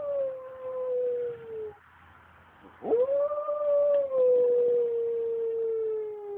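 Pembroke Welsh Corgi howling. One long howl sliding slowly down in pitch breaks off after a couple of seconds. After a short pause, a second howl swoops up sharply and then sinks slowly over about four seconds.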